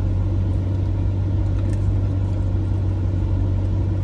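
Steady low hum of a parked car's engine idling, heard from inside the cabin.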